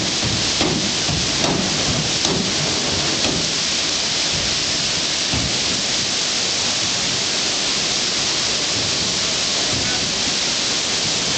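Steady rush of water pouring over the forge's water wheel. A water-driven trip hammer strikes about once a second for the first three seconds, then stops.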